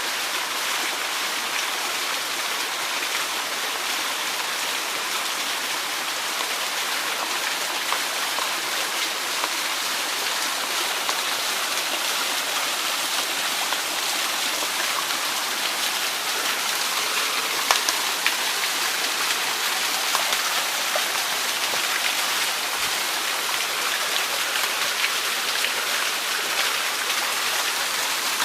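A small waterfall: water pouring and splashing in a steady, even rush, with faint scattered splashes over it.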